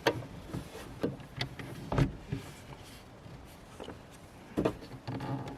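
Handling noise from fitting a mirror-mounted dash camera over a car's rearview mirror: several sharp clicks and knocks, then a short rubbing or scraping sound near the end.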